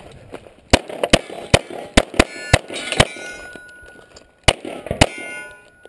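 A Glock 9mm pistol firing a string of about nine shots, several in quick pairs, with a pause of about a second and a half before the last two. A thin metallic ring hangs on after the shots around the third second.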